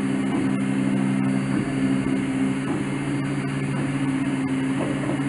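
Steady low mechanical hum, with a few faint ticks.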